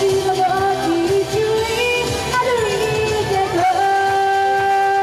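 A woman singing an anime pop song into a microphone over backing music. From nearly four seconds in she holds one long steady note.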